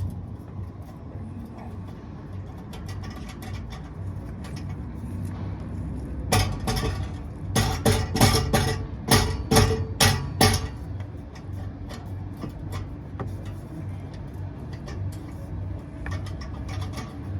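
Background music over a steady low vehicle rumble, with a run of sharp hits about a third of the way in.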